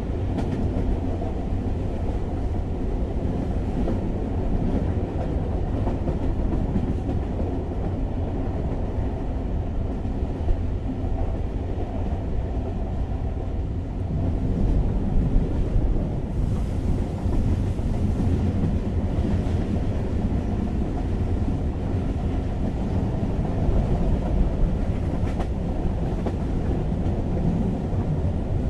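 Passenger train running, heard from inside the carriage: a steady low rumble of wheels on track with a few faint clacks, getting a little louder about halfway through.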